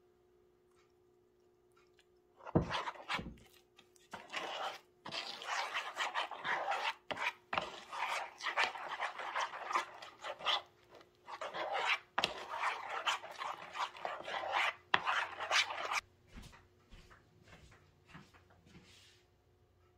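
A metal spoon stirring and scraping thick spice paste around a plastic bowl: two sharp knocks about two and a half seconds in, then runs of rasping strokes with short pauses that stop about sixteen seconds in.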